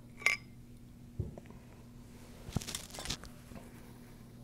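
Steel pump parts and an adjustable wrench handled on a padded bench: a sharp metallic clink about a quarter second in, a dull knock about a second in, and a short run of clicks and rattles near three seconds, over a faint steady hum.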